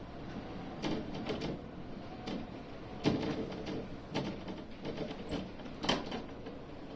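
Gondola lift cabin running along its haul cable with a steady rumble, and a series of irregular knocks and clicks as it nears and passes a pylon's roller assembly.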